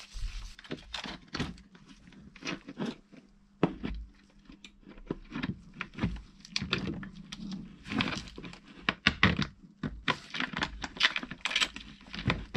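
A screwdriver working at screws in the plastic front panel of a small portable generator, and the panel being lifted off the frame: irregular clicks, knocks and thuds of tool and plastic casing.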